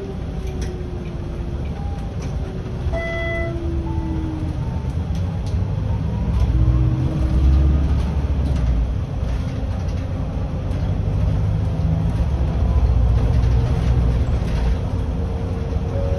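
Volvo 7900 Hybrid city bus driving, heard from the cab: a steady low drivetrain and road rumble that grows louder, with a thin whine from the hybrid drive that slides down in pitch over the first few seconds. A short electronic beep sounds about three seconds in.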